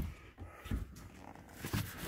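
Knocks and soft thuds of a person clambering along the deck of a small sailboat: one sharp knock at the start, then a few dull bumps.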